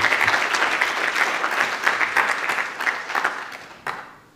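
Audience applauding: many hands clapping at once, thinning out and dying away near the end with one last clap.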